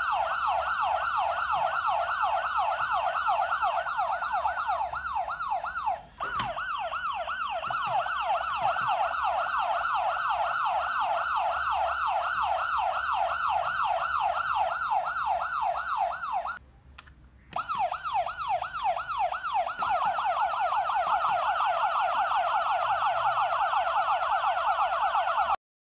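Electronic siren of Maisto Rescue Rigs toy fire trucks, a rapid yelp sweeping up and down about four times a second. It breaks off briefly about six seconds in and for about a second near the middle, then cuts off suddenly near the end.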